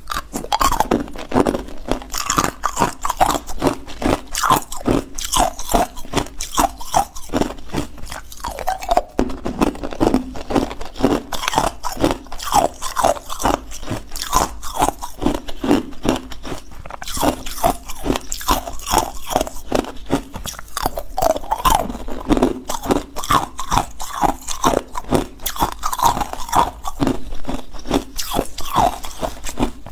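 Ice cubes being bitten and chewed, a continuous run of sharp crunches and cracks, several a second, picked up close by a clip-on microphone.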